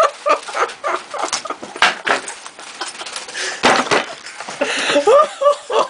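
Breathless human laughter: quick runs of short 'ha' syllables broken by wheezing, gasping intakes of breath.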